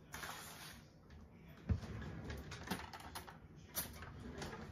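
Light, irregular clicks and knocks of kitchen items being handled, with a short hiss at the start and a dull thud about two seconds in.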